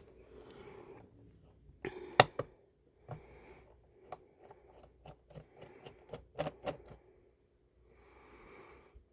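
Scattered clicks and taps of a screwdriver and small parts being handled against a laptop's plastic case, with the loudest sharp click about two seconds in and a run of quicker taps after it.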